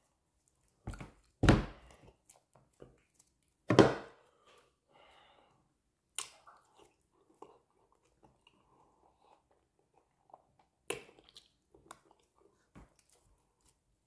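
Close-up chewing and wet mouth smacks of a person eating amala and fish with his hands. Several loud, sharp smacks stand out, the loudest about four seconds in, with softer chewing and handling noises between them.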